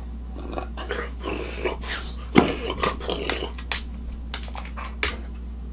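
A dog licking a man's face and beard: quick, irregular wet smacks and lapping, with one sharper click about two and a half seconds in. A steady low hum runs underneath.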